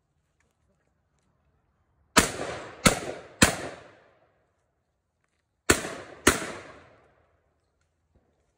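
Five shotgun shots: three in quick succession about two seconds in, then two more after a pause of about two seconds. Each report rings on briefly after the shot.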